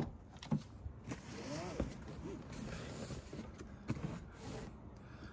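Handling and movement noise inside a car's rear seat: quiet rustling and scraping with scattered clicks and a short creak about a second and a half in.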